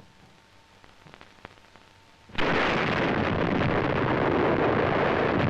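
Nuclear test explosion: after a near-silent pause of about two seconds, the blast arrives suddenly as a loud, continuous rumble that does not die away.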